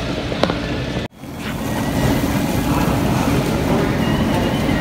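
Grocery store background noise picked up by a phone microphone while walking: a steady rumbling hiss with faint steady tones, cut by a brief dropout about a second in.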